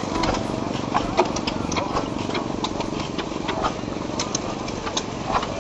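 Old open-flywheel stationary gas engines running, a steady fast chugging with scattered sharp clicks and knocks.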